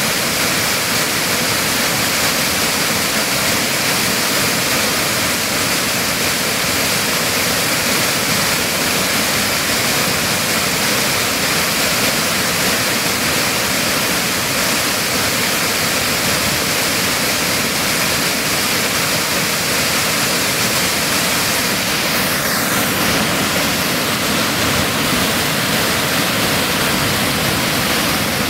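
Waterfall at close range: white water pouring over a rock ledge, a loud, steady rush of water.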